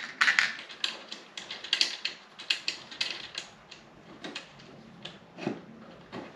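Small screws clicking and rattling in a plastic parts box as they are picked out, in quick irregular clicks. The clicks then thin out into scattered taps of hardware being handled at the machine, with one louder knock about five and a half seconds in.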